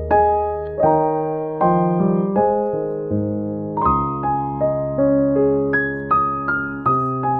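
Background piano music: a slow melody of single notes and chords, struck about once or twice a second, each note ringing out and fading.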